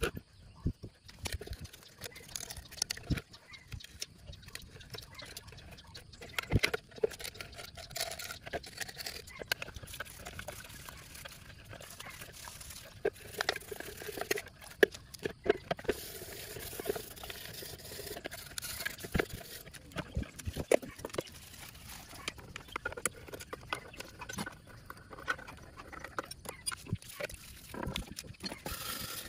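Brush scrubbing a Lambretta scooter's engine casing wet with cleaning fluid: wet scraping strokes with scattered clinks and knocks of the metal casing being shifted on concrete.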